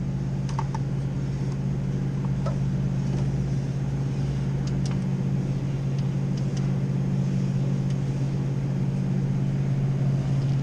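A steady low hum, with a few faint light clicks and taps of small metal parts as a bullet piercing valve is handled and fitted around a refrigeration suction line.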